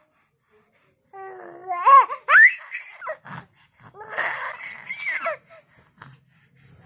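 Baby laughing in short bursts: quiet for about a second, then high rising squeals, and a breathy giggling laugh about four seconds in.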